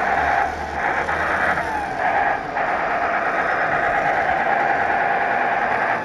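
Sound unit of an RC Tatra 130 model truck playing a simulated air-cooled diesel V8 with howling cooling fans, running steadily through the model's loudspeaker. The sound briefly dips about half a second in and again near two and a half seconds in.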